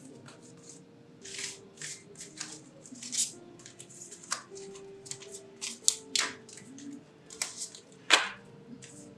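Tarot cards being gathered up by hand off a tabletop: a series of quick slides, flicks and taps of card against card and against the table, the sharpest tap a little after eight seconds in. Soft background music holds long notes underneath.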